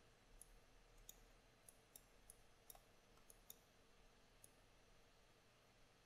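Near silence broken by faint, sharp computer mouse clicks, about nine scattered over the first four and a half seconds, then none.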